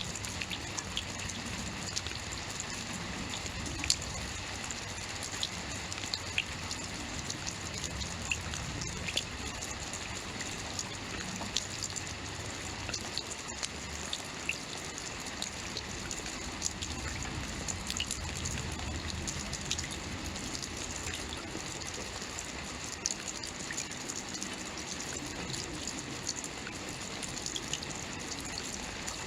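Steady rainfall, a dense hiss of falling rain with many individual drops striking a surface, over a low rumble.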